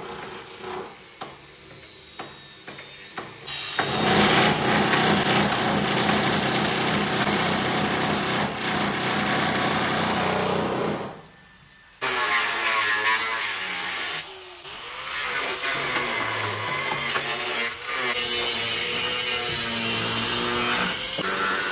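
Angle grinder cutting into a steel stair railing, the wheel screaming against the metal. It is quieter for the first few seconds, then loud. It drops out for about a second near the middle and starts again, its pitch wavering as the cut loads it.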